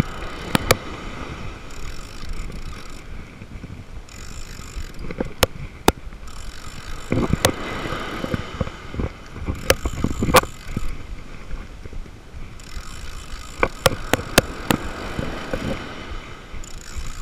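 Old spinning reel being cranked to bring in a hooked fish: a faint gear whir with scattered sharp clicks, some in quick clusters. Surf wash and wind on the microphone run underneath.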